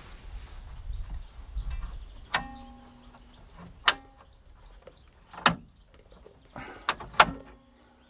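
Sharp metallic clicks and clunks from a Fiat Panda 4x4's tailgate being worked by hand, five in all, several with a brief ringing after them. Birds chirp faintly in the background.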